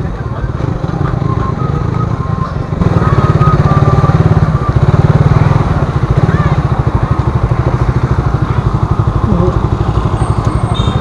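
Motorcycle engine running close to the microphone, a steady fast pulsing beat that gets louder about three seconds in.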